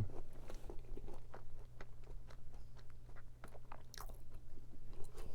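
Close-up chewing and biting of a walnut-topped tart, with many small crunchy clicks as the pastry and walnuts are chewed.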